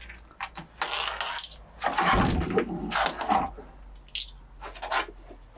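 Small metal parts clinking and rattling as they are handled, with a louder clatter about two seconds in.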